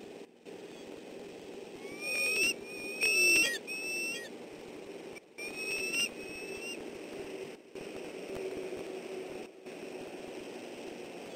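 Bald eagles calling while mating: a run of high, slightly rising chirping whistles about two to three and a half seconds in, and another short run around six seconds. Under the calls there is a steady hiss and a low hum.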